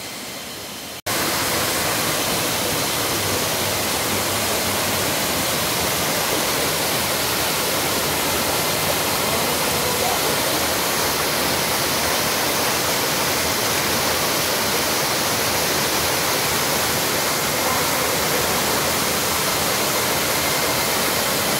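Waterfall: a loud, steady rush of falling water that cuts in suddenly about a second in.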